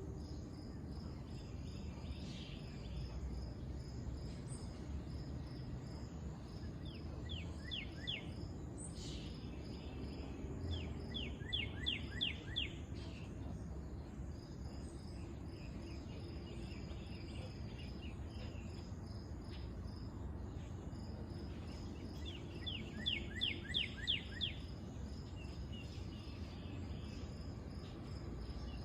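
Insects chirping steadily in a high, even pulse, with a low rumble underneath. Three times, about a quarter, two fifths and four fifths of the way through, a bird sings a short trill of quick downward-sweeping notes. The last two trills are the loudest sounds.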